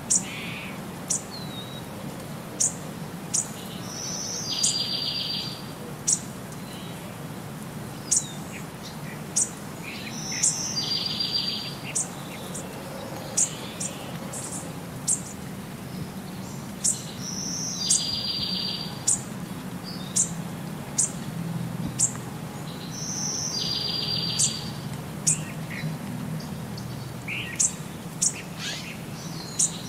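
Looped bird-chirp sound track: short, sharp, high chirps about once a second, with a buzzy trill coming round every six or seven seconds, over a low steady hum.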